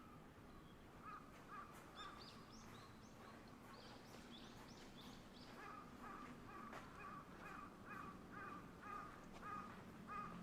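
Faint bird calls: a scatter of high chirps a few seconds in, then a run of short calls repeated about twice a second through the second half.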